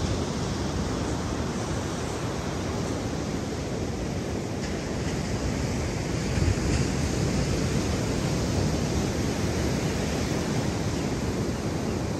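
Steady noise of wind and ocean surf, with wind rumbling on the microphone.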